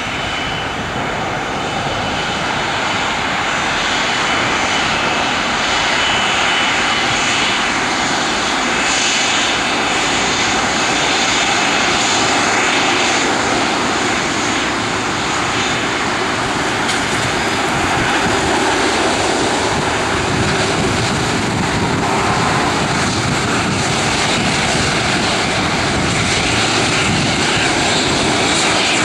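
Airbus A330-200's twin jet engines at taxi power as the airliner rolls past: a steady rush with a faint high whine, growing a little louder over the first few seconds, then holding.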